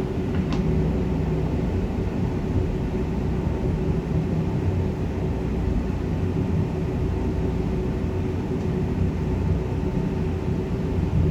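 Express train running at speed on the line: a steady rumble of wheels and running gear with a constant hum over it.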